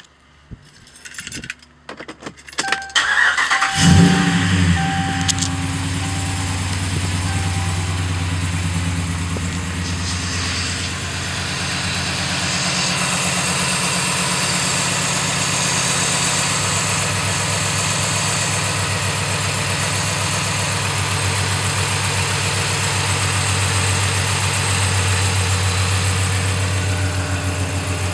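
A vehicle engine being started: a few clicks, then it cranks and catches about four seconds in with a brief rev flare, and settles to a steady idle. The engine breathes through an open-element aftermarket air cleaner.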